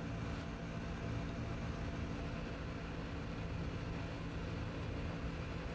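Steady low hum of background machinery, even and unchanging, with no clicks or knocks.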